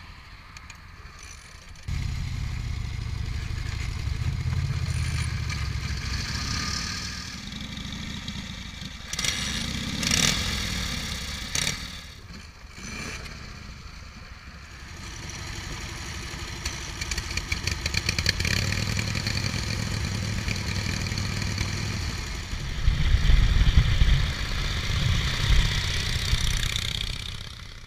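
Vintage Indian motorcycle's V-twin engine starting about two seconds in, then running with throttle blips. The engine gets louder near the end as the bike is ridden.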